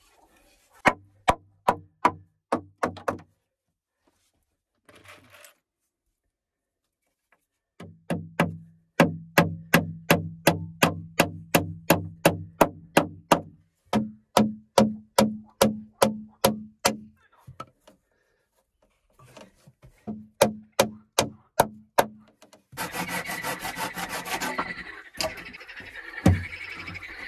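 Hammer driving nails into pine boards: runs of steady blows, about three a second, each with a low ringing note from the board, broken by short pauses. Near the end a steady hiss comes in, with a few more knocks over it.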